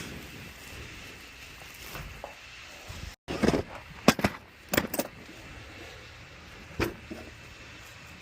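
A handful of sharp knocks and clatters, several within about a second and a half and one more a couple of seconds later, over a steady background hiss; the sound cuts out for an instant just before the knocks begin.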